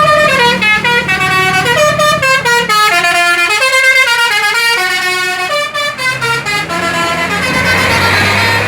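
Basuri telolet bus horn, a set of air-horn trumpets playing a fast melody of short stepped notes that run up and down. Near the end the tune fades under a rushing noise and a low hum.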